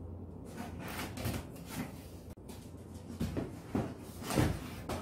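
Handling noises from a cardboard shipping box: a series of scrapes and knocks as a chainsaw is lifted out of its packaging, the loudest knock near the end.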